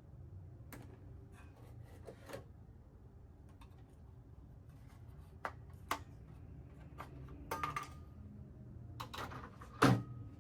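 Scattered light clicks and knocks, some in quick clusters, with the loudest knock near the end, over a faint steady low hum.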